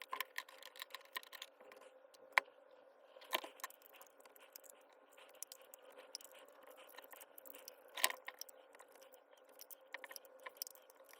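Small metal parts and hand tools clicking, clinking and scraping as the Hikoki H41SA3 electric demolition hammer is taken apart by hand. There are two sharper knocks, one about two and a half seconds in and one about eight seconds in.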